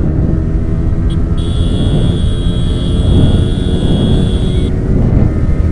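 Yamaha R15 motorcycles' single-cylinder engines running hard at high speed, heard from on board one of the bikes. A thin steady high whine comes in about a second in and stops near the end.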